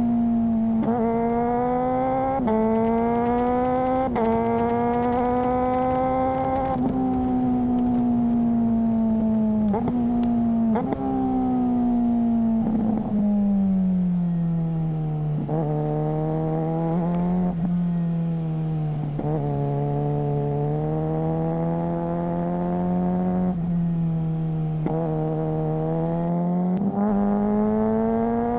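Suzuki GSR600 inline-four running through a GPR Ghost exhaust under acceleration, shifting up with a quickshifter: each shift is a brief cut with a click, and the engine note drops in pitch before climbing again. Midway the revs ease off to a lower, steadier hum, then it pulls through several more quick upshifts.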